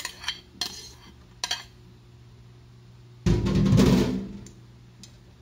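A metal spoon clinks and scrapes against a steel tray and pot a few times while scooping diced root crop. About three seconds in comes a loud rumbling thud that lasts about a second and dies away.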